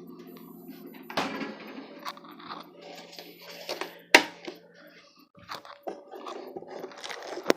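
Close rustling and handling noise with a few sharp knocks, the loudest about four seconds in, over a low steady hum that stops about five seconds in.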